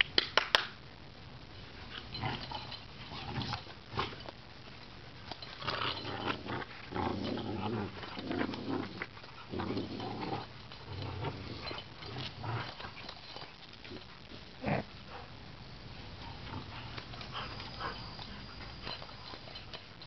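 Two dogs, an American Bulldog and a chow–akita mix, play-wrestling, with irregular bursts of growls and grunts, most of them in the middle stretch. A few sharp clicks come right at the start.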